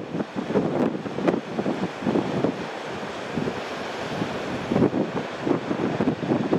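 Strong wind buffeting the microphone in uneven gusts, with sea waves and surf underneath.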